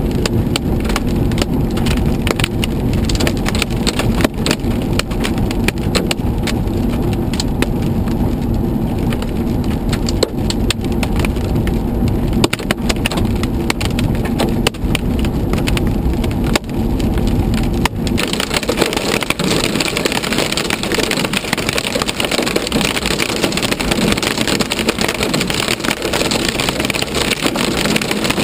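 Rain and hail hitting the roof and windshield of a moving vehicle, heard from inside the cab: many sharp taps over the rumble of the drive. About eighteen seconds in it changes suddenly to a dense, steady hiss as the downpour thickens and the low rumble fades.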